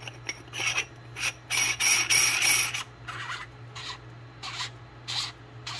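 Threaded sections of a Radium Engineering anodised-aluminium oil catch can being screwed together by hand, making a series of short scraping strokes as metal threads and O-ring rub. There is one longer scrape about two seconds in.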